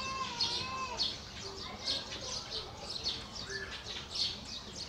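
Small birds chirping, short high calls repeating several times a second.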